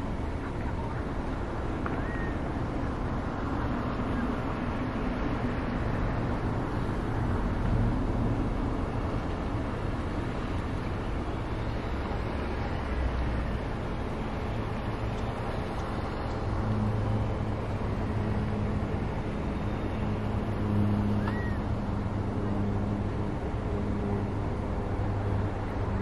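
Steady outdoor rumble of distant traffic, with a low droning hum joining it about two-thirds of the way through. A few faint, brief rising bird chirps sound over it.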